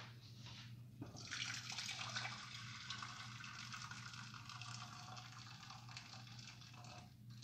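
Just-boiled water poured from an electric kettle into a stainless steel pot: a steady splashing pour that starts about a second in and eases off near the end.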